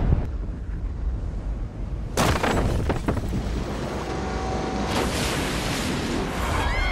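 Film disaster sound effects: a deep, steady rumble with a sharp bang at the start, then about two seconds in a sudden burst of crashing and crumbling as a concrete dam wall breaks apart.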